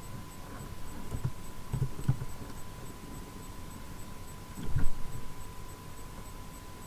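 Steady electrical hum, a single thin unchanging tone, with a few soft low knocks; the loudest knock comes near five seconds in.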